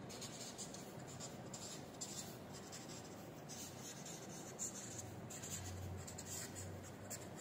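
Marker pen writing on a stack of paper: faint, scratchy strokes in short, irregular runs.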